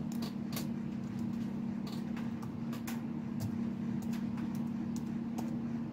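Computer keyboard keys clicking at irregular intervals as a command is typed, over a steady low hum.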